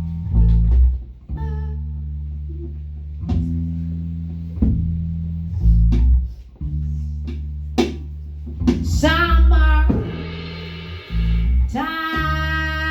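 Live band music: bass guitar holding low notes under sharp drum hits and guitar, with a rising sweep of pitch about nine seconds in and a sustained chord from about twelve seconds.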